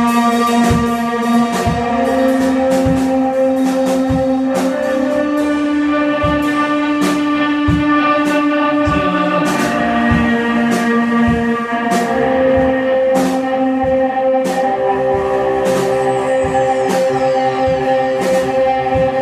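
Rock band playing: electric guitar holding long sustained notes that step from pitch to pitch over a drum kit keeping a steady beat with cymbal strikes.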